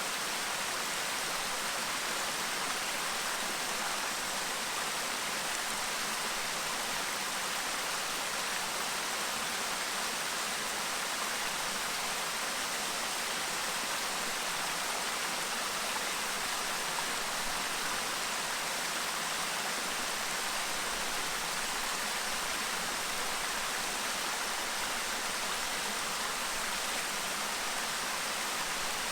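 Clear stream babbling over rocks: a steady, even rush of running water with no change in level.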